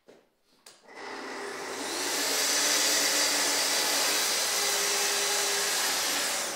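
Festool plunge-cut circular saw on a guide rail spinning up about a second in and crosscutting a wooden panel, its hose-connected dust extractor drawing at the same time. The steady hiss with a faint high whine drops off just before the end as the cut finishes.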